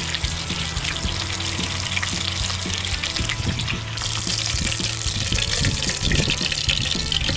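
Sea bass fillet sizzling and crackling in hot oil in a frying pan, with background music under it.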